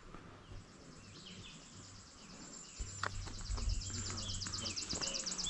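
Insects trilling in a fast, steady pulse that starts about half a second in and grows louder, with scattered short bird chirps.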